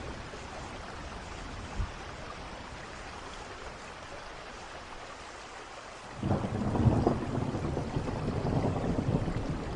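Steady rainfall, with a thunder rumble breaking in suddenly about six seconds in and rolling on loudly to the end.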